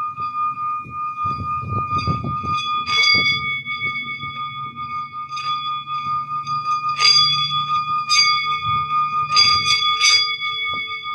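Bells ringing in a sound-healing session: a steady, sustained ringing tone with several higher overtones, struck afresh several times so that new strikes ring out over the continuing tone.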